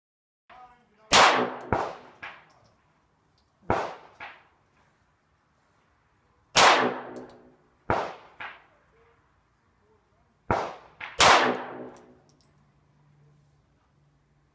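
Handgun shots: a string of sharp reports spaced one to a few seconds apart, each followed by a ringing echo. Some are louder than others.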